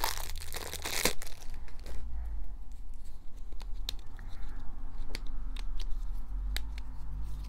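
Plastic wrapper crinkling and tearing as a small fidget toy is unwrapped, dense for about the first second, followed by scattered light clicks and taps as the plastic toy is handled.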